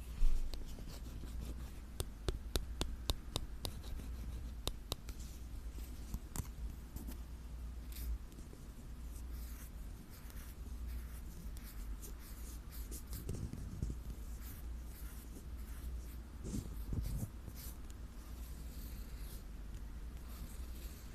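Close-miked ASMR scratching and tapping on an object: a quick run of sharp clicking taps a couple of seconds in, then softer, steady scratching and rubbing.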